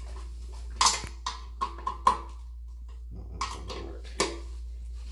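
Ratcheting wrench working the nut on a toilet's floor bolt: two clusters of sharp metallic clicks with a short ring, the first about a second in and the second past the middle.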